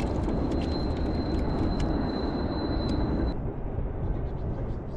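Steady rumble of wind and water noise on a fishing boat, with a thin high whine that cuts off about three seconds in and scattered light clicks.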